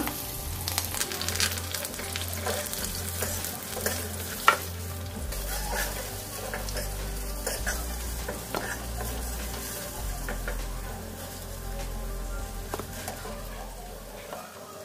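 Hot oil sizzling steadily as banana flower balls and curry leaves deep-fry in a pan, with a few sharp clicks of a metal slotted ladle against the pan, the loudest about four and a half seconds in.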